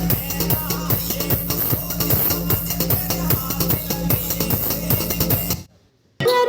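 Music with a fast, steady beat playing through speakers driven by a TDA7498 class D amplifier board. The music cuts out for about half a second near the end, then a different track starts.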